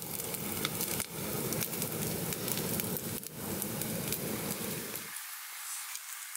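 Wood campfire burning, with a steady low rush of flame and many sharp crackles and pops. About five seconds in, the low rush cuts off suddenly and only lighter crackling goes on.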